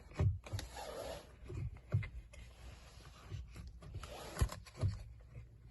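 Scattered light knocks, clicks and rustling as a steering-wheel airbag module is worked free and handled, with one sharp click a little past the middle.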